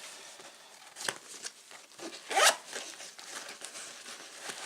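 Bag gear being handled: a sharp click about a second in, a short rasp a little after two seconds, and a few smaller rustles and taps.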